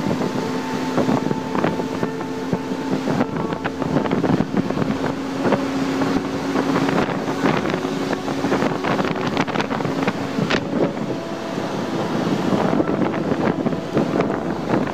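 Engine drone and road noise of a moving road vehicle, heard from inside, steady throughout, with irregular buffeting and knocks of wind on the microphone.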